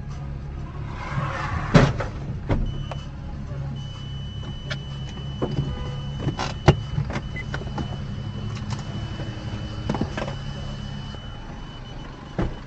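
A car's engine and road noise drone steadily, broken by several sharp knocks, the loudest about two seconds in. A thin, steady high tone like an electronic beep sounds through most of the middle.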